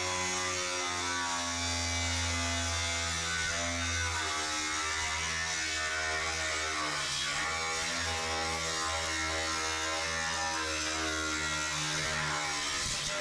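Background music: held, buzzing chords that change every second or so over a steady low hum.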